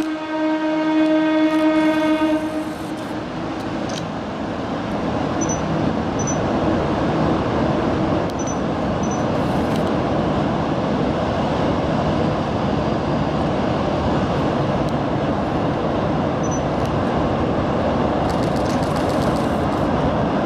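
Kurobe Gorge Railway trolley train's electric locomotive sounding one long horn blast of about two and a half seconds, then the train running across a steel bridge with a steady rumble of wheels on rail that grows a little louder as it approaches.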